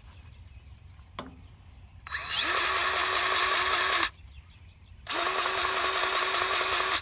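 DEWALT 20V Max cordless grease gun (DCGG571M1) motor pumping grease into a grease fitting, in two runs of about two seconds each, a second apart. A faint click comes about a second in.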